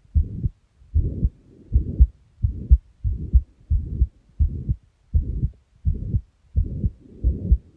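Heartbeat with a murmur, at a steady pace of a little under one and a half beats a second. Each beat's low thuds are joined by a rushing whoosh.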